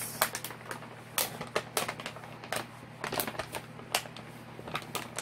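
Plastic and paper sheets over a diamond painting canvas crinkling and crackling as they are handled and smoothed flat by hand, in irregular sharp crackles.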